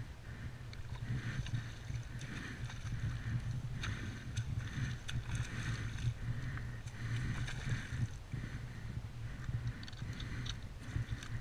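A hooked jack pike splashing and thrashing at the surface close to a kayak, with water slapping against the hull, in short bursts over a steady low wind rumble.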